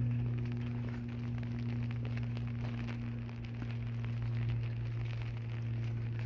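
Steady low hum, with faint scattered ticks and crackles over it.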